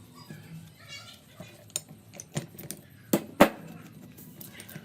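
A string of sharp metallic clinks and knocks from tools and metal parts being handled, the two loudest close together about three seconds in.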